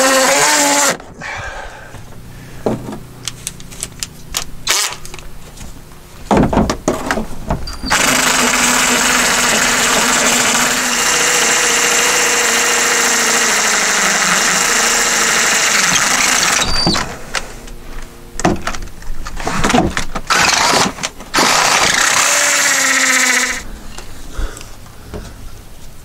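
Cordless DeWalt hammer drill boring into a brick facade: several short bursts with the motor whining up and down, and in the middle a long steady run of about eight seconds.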